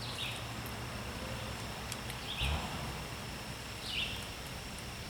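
Short bird chirps, three of them spaced a second or two apart, over a steady low outdoor background, with a soft low thump about halfway through.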